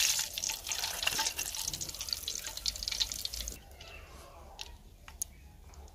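Hot frying oil crackling and sizzling as fried chicken drumsticks are lifted out on a wire skimmer, oil dripping back into the pan. The sizzle drops away about three and a half seconds in, leaving a few faint pops.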